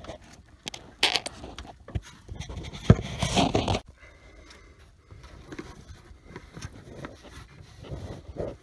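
Metal transmission cooler line scraping, clicking and knocking against the truck's underbody as it is worked into place by hand, with handling noise. The scraping is busiest over the first four seconds, with one sharp knock about three seconds in, then it turns to quieter rustling.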